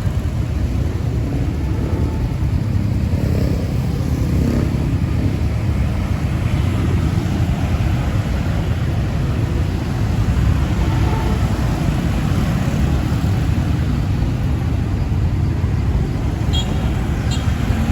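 Steady wind rumble on the microphone mixed with the motorcycle's engine and surrounding traffic, heard from the back seat of a moving motorcycle taxi.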